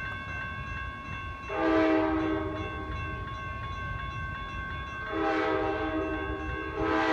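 Amtrak Cascades passenger train, an F40 locomotive leading, sounding its horn as it approaches the grade crossing: two long blasts, with a third starting near the end. A crossing warning bell rings steadily throughout.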